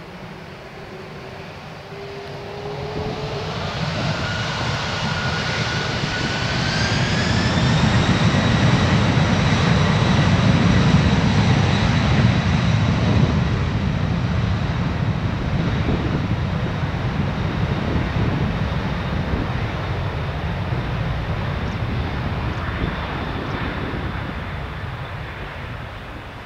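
Boeing 767's twin jet engines spooling up to takeoff thrust, a whine rising in pitch over the first several seconds. It then settles into a steady high whine over a heavy low rumble, loudest about halfway through, and fades toward the end.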